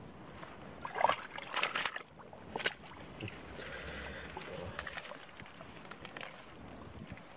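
Hands working in shallow muddy water: a handful of sharp splashes and slaps, the loudest about a second in, with sloshing and the rustle of water hyacinth stems being pulled as he gropes for fish.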